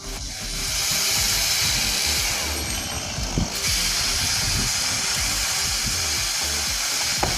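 Chainsaw running at full throttle and cutting wood, easing off briefly about three and a half seconds in, over background music.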